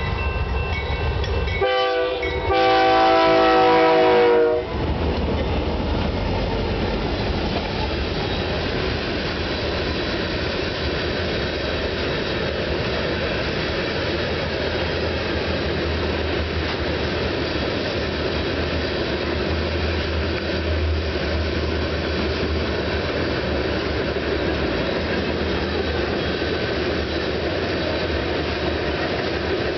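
Air horn of the lead GE C44-9W (Dash 9) diesel locomotive sounding at the crossing, with a louder blast from about two and a half seconds in that cuts off near five seconds. After the horn come the low rumble of the diesel locomotives passing and a long string of two-bay covered hoppers rolling by with steady wheel-on-rail clatter.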